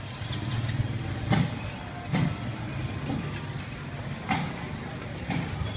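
Steady low hum of an idling motor vehicle engine, with a few sharp knocks or clinks over it.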